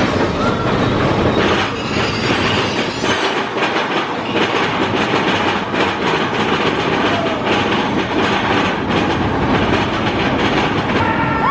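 Big Thunder Mountain mine-train roller coaster running along its track: a loud, steady rattle and clatter of the wheels on the rails, mixed with rushing wind on the microphone.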